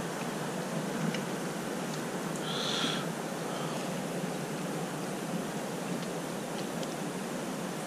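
Steady outdoor background hiss with a few faint clicks, and one brief high-pitched call about two and a half seconds in.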